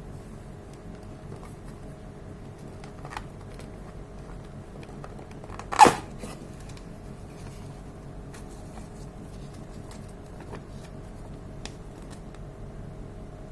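A single shot from a CO2-powered Beretta M84 airsoft pistol firing a 6 mm BB: one sharp, loud crack about halfway through, with a brief tail. A few faint clicks come before and after, over a steady low background hiss.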